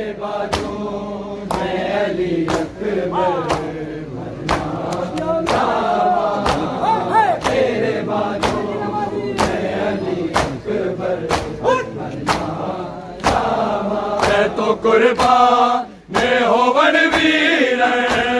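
Men's voices chanting a Punjabi noha (mourning lament) together, with sharp slaps of chest-beating (matam) sounding about once or twice a second, unevenly. The chanting drops out briefly about two seconds before the end, then resumes.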